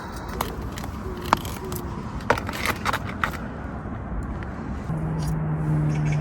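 A few sharp clicks and clinks over steady background noise, then a steady low hum that begins about five seconds in.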